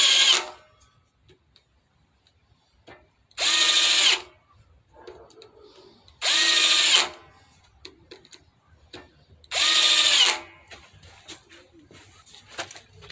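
Cordless impact driver run in short bursts of about a second each, four times, roughly every three seconds, with a high motor whine. Light clicks come between the bursts.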